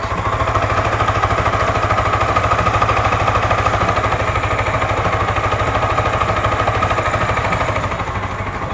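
Yamaha R15 V3's single-cylinder engine idling steadily with an even beat, running smoothly with no tappet or rocker tick, freshly serviced. It is slightly louder through the middle and eases a little near the end.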